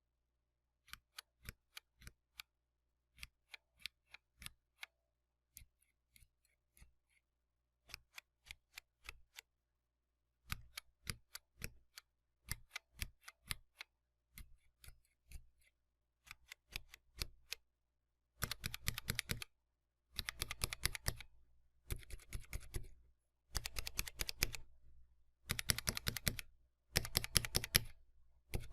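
Cherry MX mechanical keyboard switches being pressed, first in small groups of separate key clicks, then from about 18 seconds in as louder bursts of fast typing.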